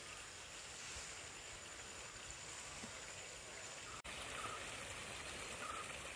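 Steady, faint hiss of open forest ambience. About four seconds in it cuts off abruptly and starts again, and a few short high chirps follow, about one a second.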